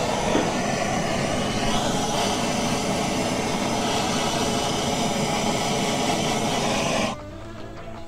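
Handheld propane torch burning with a steady hiss, its flame on a seized brake line fitting at a brake master cylinder to heat it loose; the torch shuts off suddenly about seven seconds in.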